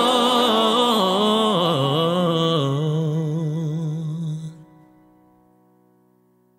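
Closing bars of a recorded musical-theatre song: the final note is held with vibrato over the band, the music stops sharply about four and a half seconds in, and a chord rings on and fades out.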